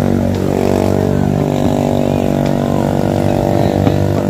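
Several motorcycle engines running and revving together, with a few faint pops from distant fireworks.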